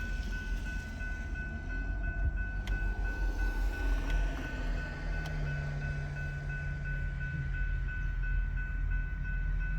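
Railroad crossing bell ringing in a rapid, even repeat, over the low rumble of a Union Pacific local train at the crossing.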